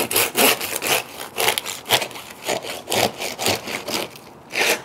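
Long slicing knife sawing back and forth through the crisp, crackling skin of a rotisserie porchetta, each stroke a short crunch, several a second, with a last loud crunch near the end as the cut goes through.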